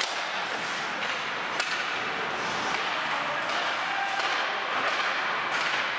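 Ice hockey play in a rink: skates scraping and carving on the ice, with a single sharp click of stick or puck about one and a half seconds in.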